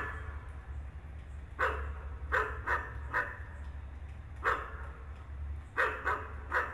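A dog barking repeatedly, about nine short barks at irregular intervals, some in quick runs of two or three, over a steady low hum.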